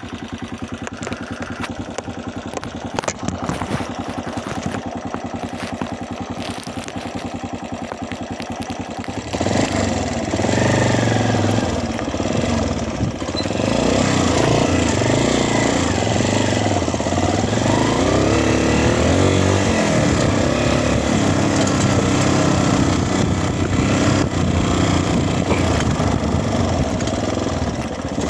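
Dirt bike engine idling with a rapid, even beat, then about nine seconds in it gets louder and runs under throttle, its pitch rising and falling as the rider accelerates and eases off.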